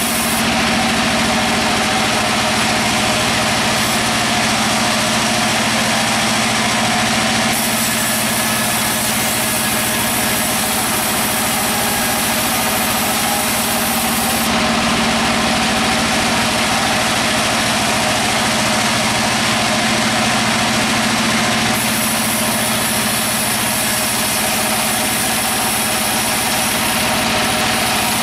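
Sawmill bandsaw machinery running steadily: a loud, constant engine-like hum that does not change.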